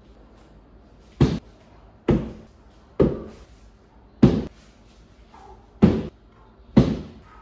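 Six heavy thuds, unevenly spaced about a second apart, each dying away quickly.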